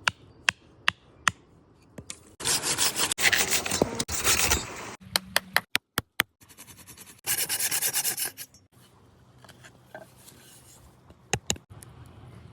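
Hand tools working wood. A run of sharp knocks about two a second opens it. Two long stretches follow of rapid strokes scraping across the wood, with more single knocks between them and a pair of knocks near the end.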